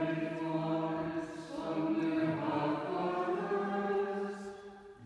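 Dominican friars chanting vespers in unison plainchant: slow, held sung notes with a short break for breath about a second in, the phrase fading out near the end.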